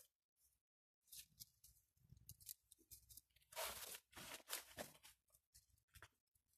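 Faint rustling and crackling of Siberian iris leaves as they are twisted and pulled tight into a braid, in short irregular bursts, loudest in the middle.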